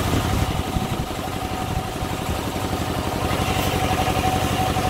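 An engine idling steadily, a rapid even chugging with a thin steady whine above it.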